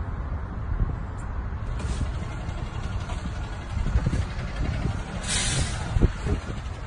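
Steady low rumble of wind on a phone microphone, with a few dull handling bumps and a short rustle of a cloth dust bag about five seconds in.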